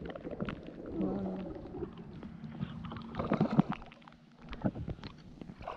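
Water splashing and gurgling against the side of a small fishing boat as a ray hooked on a handline stirs at the surface, with scattered knocks on the hull.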